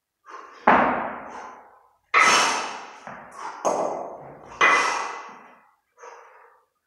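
Two 32 kg competition kettlebells worked through a long-cycle clean-and-jerk rep: four loud hits about a second apart as the bells are driven up, dropped and caught back in the rack, each ringing out for about a second, with a faint metallic ring on two of them and heavy breathing between.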